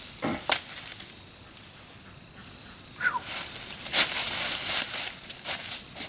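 Footsteps crunching and rustling through dry fallen leaves on the forest floor, dense and crackling through the second half. A brief falling squeak comes just before the steps start.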